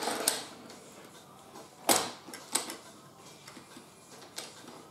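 Scattered clicks and knocks of plastic toy train cars being handled and pushed together as a coal wagon is coupled to the toy locomotive; the loudest knock comes about two seconds in.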